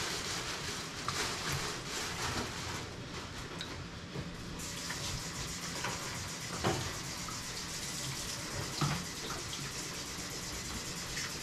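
Water running from a tap into a sink, steady, growing fuller about four and a half seconds in, with a few sharp knocks about seven and nine seconds in.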